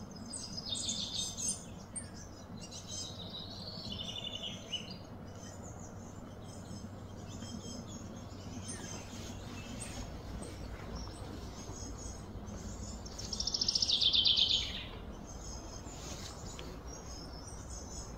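Birds chirping and calling in the background over a steady low outdoor noise, with one louder rapid run of notes about three quarters of the way through.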